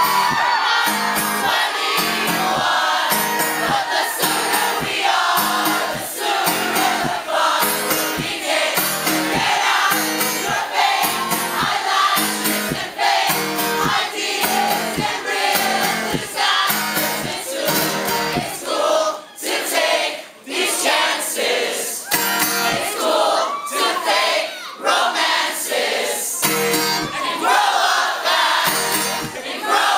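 Music with several layered singing voices, choir-like, over a steady rhythmic beat.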